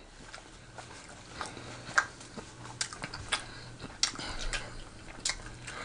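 Quiet chewing with scattered mouth clicks and smacks, picked up close to the microphone, over a faint steady low hum.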